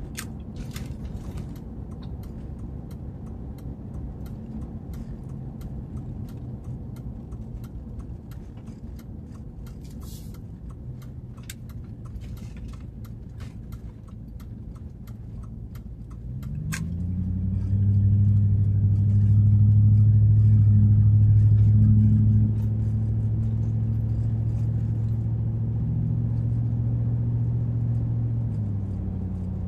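Chevy Avalanche Z71's V8 heard from inside the cab: a low steady rumble with scattered light ticks and rattles, then a little over halfway through the engine note rises and swells as the truck accelerates, loudest for a few seconds, before settling to a steady pull and easing off near the end.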